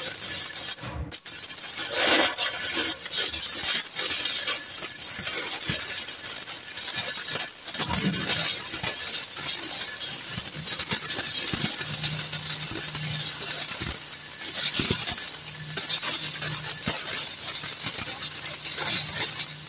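Self-shielded flux-cored arc welding with Lincoln NR-305 5/64" wire fed through a long gooseneck gun: a steady crackling arc full of spatter, run at 29.5 volts with the wire speed turned up. The arc breaks off briefly about a second in, and a low steady hum joins about twelve seconds in.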